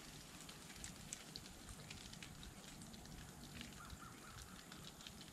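Near silence outdoors: faint background hiss with scattered light clicks and crackles, and a faint brief chirp about four seconds in.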